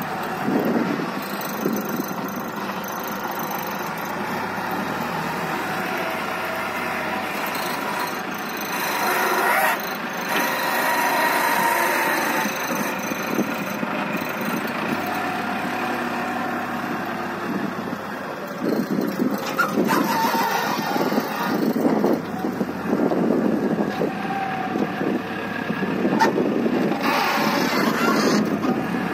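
Small wheel loader's diesel engine working, its revs rising and falling under load as it lifts and dumps a bucketful of soil into a dump truck and then pushes soil along the ground.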